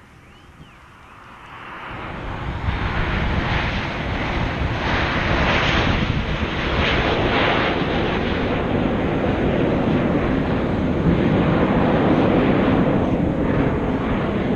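Jet aircraft flying past in formation: a loud jet roar that swells in over the first two seconds and stays loud, rising and falling slightly as the formation passes.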